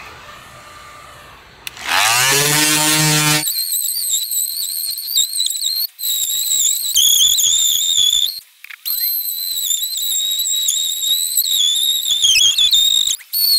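Handheld power tool working the wooden corner trim: its motor spins up with a rising hum, then runs with a high whine that wavers under load. The whine cuts out briefly three times as the trigger is released.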